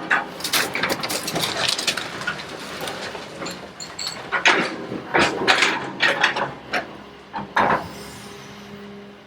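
Excavator crushing a wooden house: repeated cracking, splintering and crunching of breaking timber and debris, with many sharp impacts. The machine's engine hum shows through steadily near the end.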